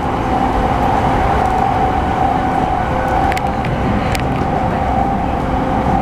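E217 series electric train on the move at the platform: a steady rumble with a steady mid-pitched hum, and a couple of short clicks a few seconds in.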